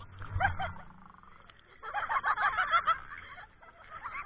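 People laughing and shrieking in high-pitched bursts, a short one about half a second in and a longer run of rapid laughter from about two to three seconds in.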